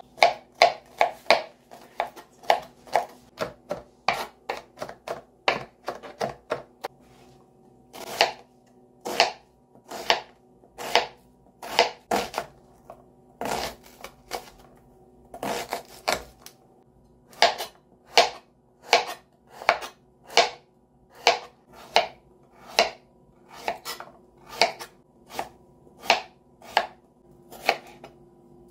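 Kitchen knife chopping garlic, red onion and red bell pepper on a plastic cutting board: a long run of sharp knocks as the blade hits the board. The knocks come quickly at first, slow to about one a second, then quicken again toward the end.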